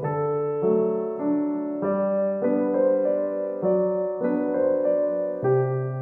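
Background music: a gentle keyboard melody of held, piano-like notes, each changing about every half second to a second.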